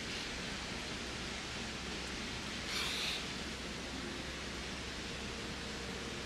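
Steady hiss of background noise, with a brief louder rustling hiss about three seconds in.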